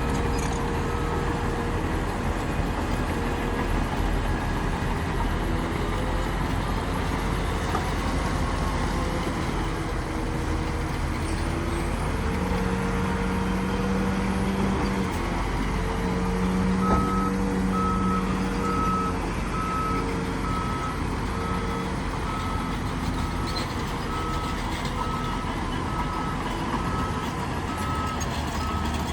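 Heavy diesel engine of a bulldozer working, its pitch rising and falling as it revs under load. From a little past halfway, a reversing alarm beeps steadily, a bit more than once a second.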